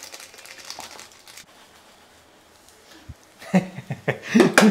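Faint rustling and light ticks, then near the end a run of loud scrapes and clanks from a metal spatula against a frying pan as scrambled egg is scooped out of it.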